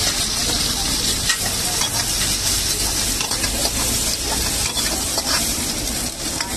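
Hot oil sizzling steadily as chopped green vegetables are stir-fried in a wok with a steel ladle, beside a large pan of oil deep-frying veg manchurian balls, with a few clicks of the ladle against the wok.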